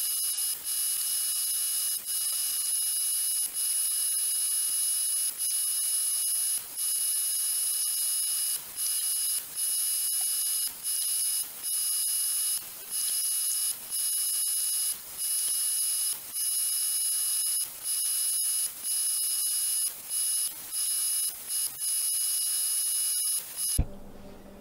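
Electric miter saw's motor whining at a steady high pitch as cedar boards are cut, broken by brief gaps about once a second. It stops abruptly near the end.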